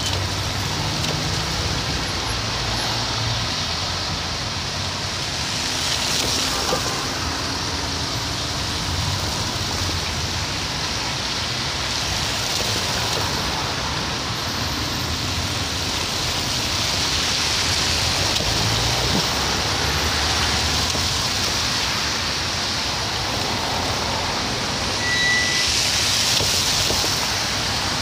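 Road traffic on a wet, slushy city street: cars and buses creeping past with a steady hiss of tyres on the wet surface over low engine rumble.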